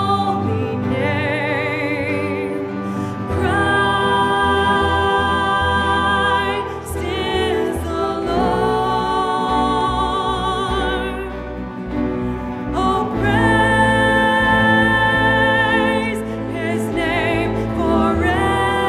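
Music: a singer in an operatic style holding long notes with vibrato over instrumental accompaniment, each note held for a few seconds.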